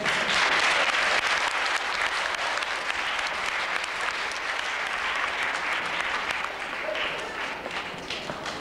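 A crowd applauding, the clapping starting suddenly and thinning out toward the end.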